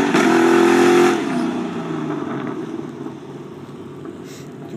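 A car's engine at full throttle, pulling hard at high, steady revs for about a second just after a gear change. Then the engine note drops away and fades as the car accelerates off from a standing-start launch.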